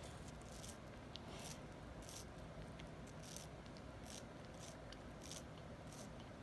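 A cockatoo biting and crunching a slice of watermelon with its beak: faint, short, wet crunches at an uneven pace, about one or two a second.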